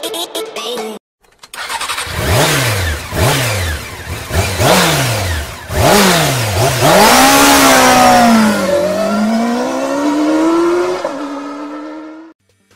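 Yamaha R3 motorcycle's parallel-twin engine revved in about five quick throttle blips, the pitch dropping back after each. Then a longer run in which the engine note rises, dips and climbs again before cutting off suddenly. A second of electronic music comes before it.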